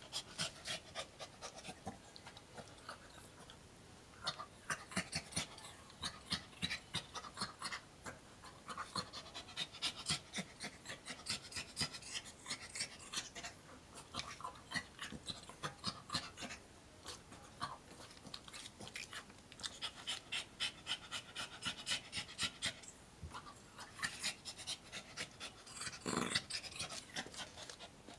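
Small dog panting rapidly, quick breaths in runs of a few seconds with short pauses between, and one louder, fuller sound near the end.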